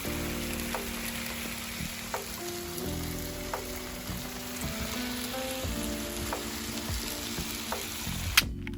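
Background music with a steady crackling, sizzling hiss over it. Near the end the hiss cuts off with a sharp click.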